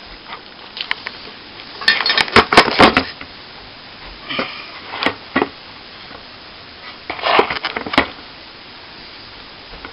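Plastering tools clicking, knocking and scraping in three short flurries, about two, four and seven seconds in.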